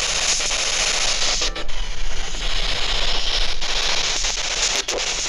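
Handheld spirit box, a radio scanner sweeping through stations, putting out a loud rush of static hiss. The hiss is chopped by a few brief breaks as it jumps between frequencies.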